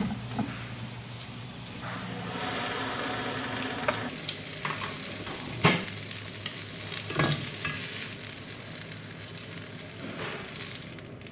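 Food frying and sizzling in a pan as it is stirred, with a few sharp knocks of a utensil against the pan.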